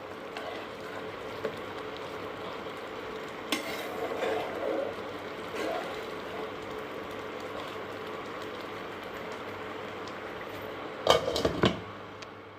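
Veg pulao cooking in a covered pan, a steady bubbling hiss as the rice simmers. A clack a few seconds in and a short run of metal clattering of pot and utensil about eleven seconds in, the loudest sound.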